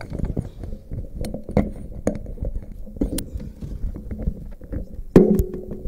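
Handling noise from a live microphone and sound system being adjusted: irregular clicks, knocks and rumbling thuds over a faint steady hum, with a louder thump about five seconds in.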